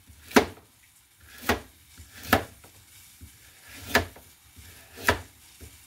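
Kitchen knife chopping a carrot on a plastic cutting board: five separate knocks of the blade going through and hitting the board, unevenly spaced about a second apart.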